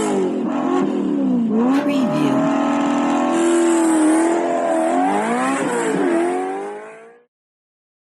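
Rally car engine at high revs, its pitch climbing and dropping several times as it works through the gears, with a sharp crack about two seconds in. The engine fades out about seven seconds in.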